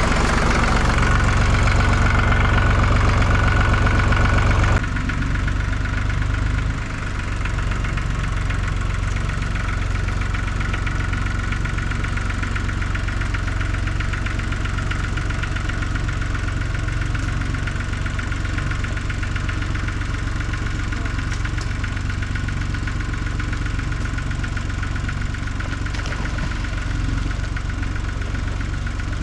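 Tractor engine running steadily at idle; about five seconds in its sound abruptly thins and drops a little, then it runs on evenly.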